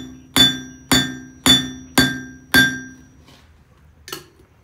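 Hand hammer striking a hot billet of stacked copper-nickel quarters on a steel anvil: five sharp taps about two a second, each leaving the anvil ringing. These are light blows to set the forge weld of a mokume gane billet. A single lighter knock comes near the end.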